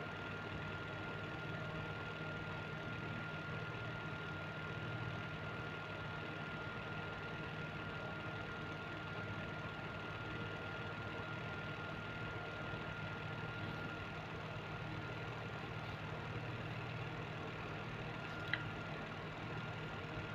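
Steady low mechanical hum with a thin, constant high whine above it, and one short click near the end.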